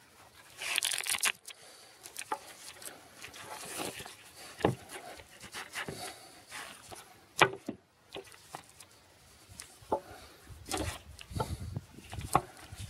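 Handling noise of a small paracord-wrapped hatchet and its black nylon sheath on a wooden table: the fabric sheath rustles and scrapes as it is worked off the blade. Scattered sharp clicks and knocks sound as the steel head touches the boards, with the loudest rustle about a second in.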